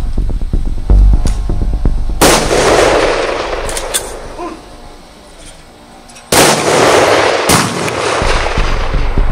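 Four pistol shots, about a second in, at two seconds, just after six seconds and at seven and a half seconds, each followed by a long echoing tail. Background music runs underneath.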